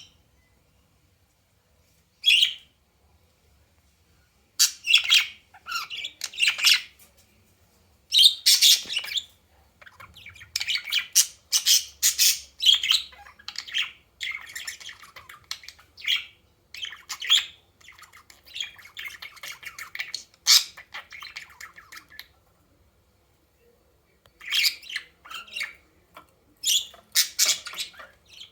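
A bird calling in many short bursts, with a quiet stretch about three quarters of the way through.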